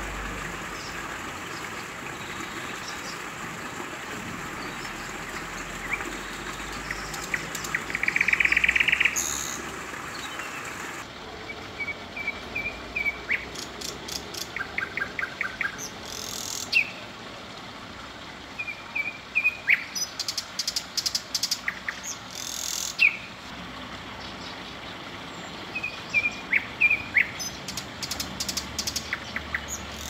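Thrush nightingales singing: separate phrases of clicking notes, fast runs of repeated notes and short whistles. A loud, buzzy phrase lasting about a second comes about eight seconds in. The steady background hiss drops about eleven seconds in.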